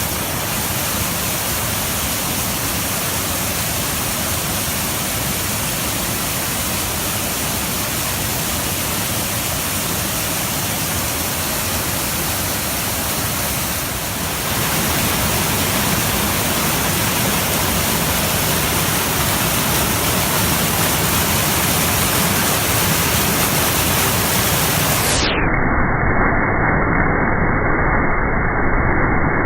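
Waterfall: a steady rush of falling water, growing a little louder about halfway through. Near the end the sound turns dull and muffled for a few seconds as its upper range drops out.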